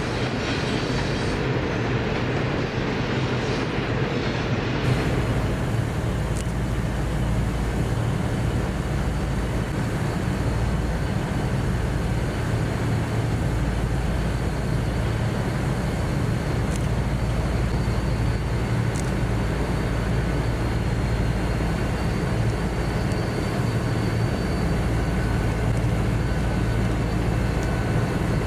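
Loaded grain train passing: for the first few seconds the rolling wagons give a brighter rumble. About five seconds in this changes abruptly to the steady low drone of the lead diesel-electric locomotives (BL class and 81 class) running as they approach.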